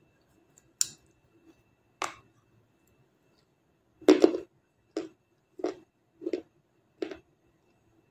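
Close-up mouth crunching as a person bites and chews hard, brittle pieces of black star: two sharp crunches, a louder bite about halfway, then chewing crunches about every two-thirds of a second.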